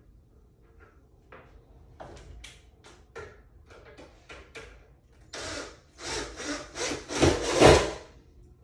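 Cordless drill driving a screw into a pine board: a few short rough bursts, then a longer, loud grinding run as the screw bites into the wood, which stops near the end.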